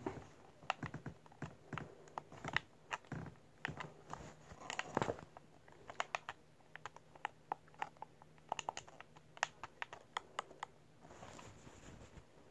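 Buttons of a handheld game controller clicking as they are pressed in quick, irregular runs, close to the microphone. The clicks stop about eleven seconds in, followed by a soft rustle.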